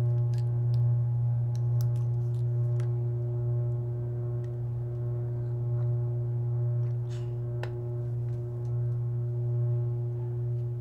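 A sustained low drone of film-score music, one deep tone held steady with fainter ringing overtones above it, like a singing bowl. A few light clicks and a brief rustle about seven seconds in come over it.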